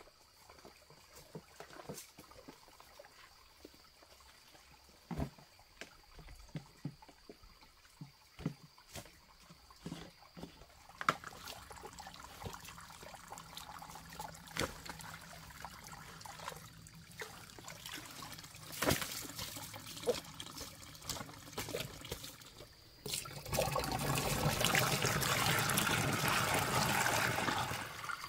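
Water trickling from a hose into a plastic basin, swelling to a louder steady splashing for about four seconds near the end. Scattered light clicks and rustles come before the water is heard.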